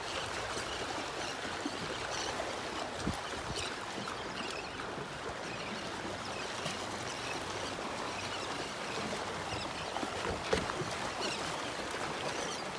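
Small waves lapping and splashing against a small boat's hull, a steady wash of water.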